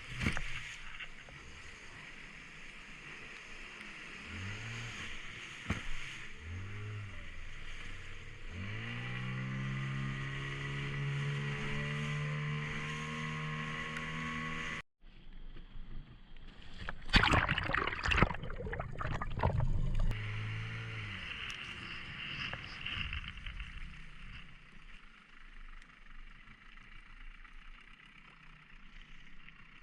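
Small boat's outboard motor: two short throttle blips, then it revs up and runs steadily for several seconds before cutting off abruptly. A louder, noisier stretch of engine follows, then fades to a quiet hiss.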